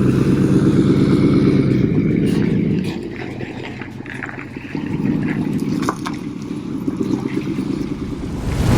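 A pickup truck's engine running with a low rumble. It is loudest for the first few seconds, eases off, then picks up again about five seconds in.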